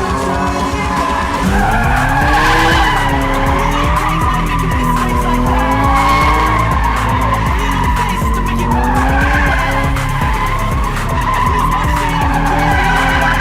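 Car drifting: the engine revs up and down repeatedly as the tyres skid and squeal.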